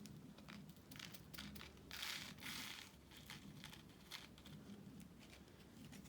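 Faint crinkling and light clicks of small plastic bags of diamond painting drills being handled, with a slightly louder rustle about two seconds in.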